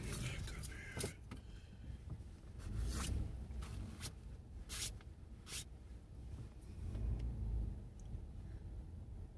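Low rumble inside a stopped car, swelling twice, with a handful of short sharp clicks and scrapes.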